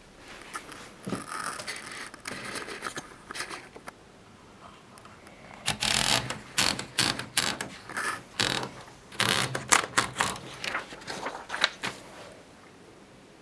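1950s Groma Kolibri portable typewriter being worked: scattered light mechanical clicks at first, then, about six seconds in, a run of sharp clacks at irregular spacing, as in typing, lasting about six seconds.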